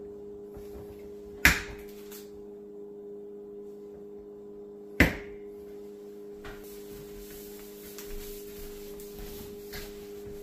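Two sharp knocks, about three and a half seconds apart, from a plastic shaker cup and its snap-on lid being handled and set down on a countertop, over a steady low hum.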